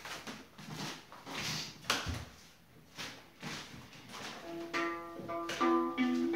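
Rustling and knocking of someone moving about and handling a violin, with one sharp knock about two seconds in. About two-thirds of the way through, the violin's strings are plucked, giving a few short notes.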